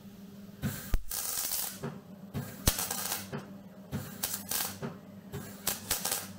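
Electric arc welding: a run of short crackling bursts, each under a second with brief gaps between them, as the arc is struck and broken for tack welds on steel. A steady low hum runs underneath.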